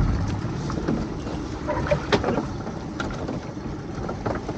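Wind and choppy water lapping around a small open boat, with a few scattered light knocks and clicks as a pot line is hauled in over the side.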